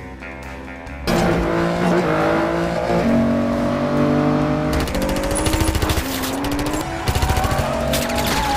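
Aston Martin V12 engine revving hard, its pitch climbing and dropping through the gears, with tyre noise, bursting in suddenly about a second in over orchestral film music; rapid stuttering clatter cuts in around five and seven seconds in.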